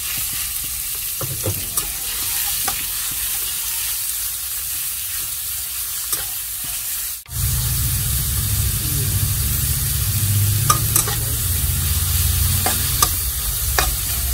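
Sliced meat sizzling in hot oil in a wok while a metal spatula stirs it, with a steady frying hiss and scattered sharp clicks and scrapes of the spatula against the pan. A brief break comes just past halfway, after which a low hum runs underneath.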